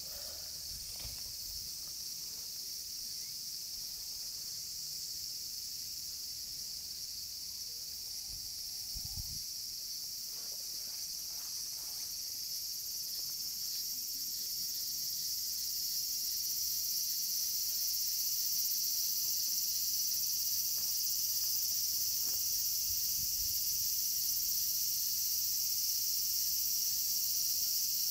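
Steady high-pitched chorus of insects, swelling louder about halfway through and then holding.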